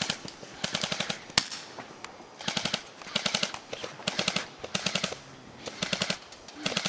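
Airsoft rifle firing short full-auto bursts of rapid clicking shots, about seven bursts at roughly one a second, with a single sharp shot about a second and a half in.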